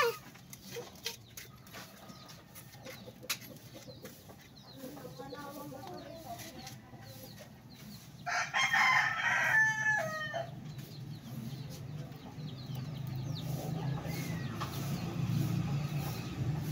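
A rooster crows once, about eight seconds in, for about two seconds, ending in falling notes. A low steady hum grows louder near the end.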